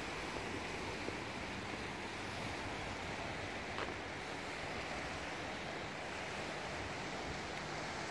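Small waves of Lake Wakatipu lapping steadily on a pebble shore, with wind on the air, and one faint click about four seconds in.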